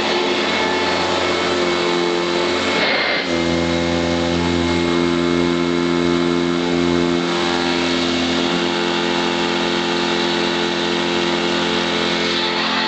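Eureka ESP direct-air commercial upright vacuum cleaner running steadily with a whine made of several even tones. About three seconds in, the tone briefly breaks and shifts, then settles again.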